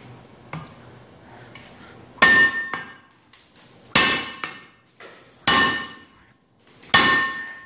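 Steel blade of a Li'Jo folding utility shovel chopping into a brick: four hard strikes about a second and a half apart, each with a short metallic ring. Two light knocks come before them.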